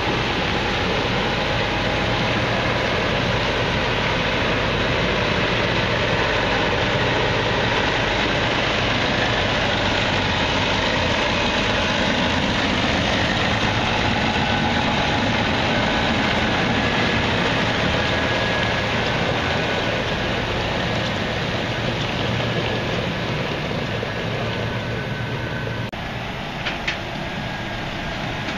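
Versatile DT450 quad-track tractor's Cummins diesel engine running steadily as the tractor moves. Near the end the sound changes and is somewhat quieter, with two short sharp knocks.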